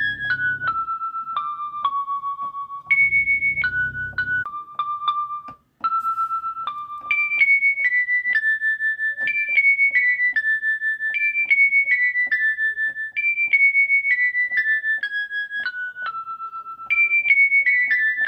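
Background music: a simple keyboard melody of single high sustained notes, mostly stepping downward in short phrases, with a brief dropout about six seconds in. A low rumble sits under the first second and again around three to four seconds in.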